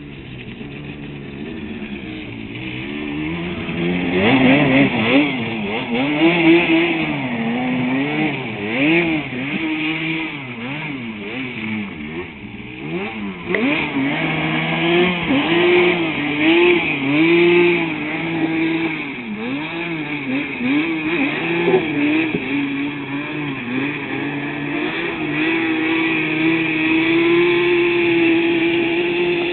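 Yamaha Banshee quad's two-stroke twin engine, growing louder over the first few seconds as it comes closer, then revving up and down over and over as it is ridden hard. Near the end it holds a steady high pitch.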